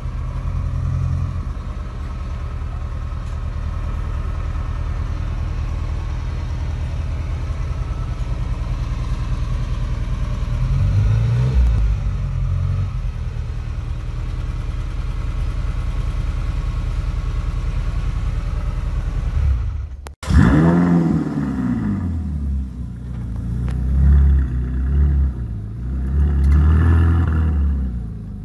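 Ferrari 308 GTS V8 idling steadily with a short blip of revs about halfway through. After a cut, a Ferrari California V8 is revved, its note sweeping up and back down, followed by several more short blips.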